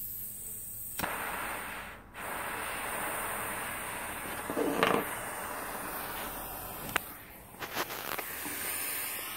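Small pencil butane torch lit and burning with a steady hissing flame. The hiss stops briefly about two seconds in and starts again. A couple of clicks and a brief louder rush about five seconds in sit over it.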